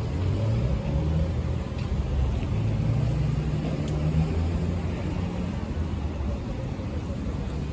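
Low engine rumble of motor traffic, a little louder around three to four seconds in, under general street ambience.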